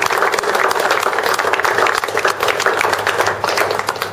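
A group applauding: many hands clapping close by in a dense, steady patter.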